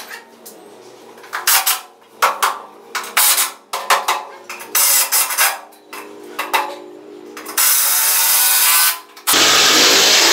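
Construction work overhead on scaffolding: irregular knocks and clatters of tools against metal and timber. Near the end, two loud steady stretches of tool noise, each a second or so long.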